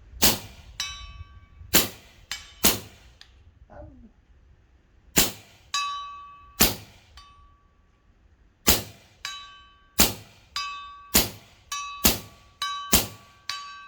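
A run of suppressed shots from a .357 Terminator airgun fitted with a carbon-fibre baffled shroud, each a sharp crack. Many are followed about half a second later by the pellet striking a distant metal target, which rings with a clear tone.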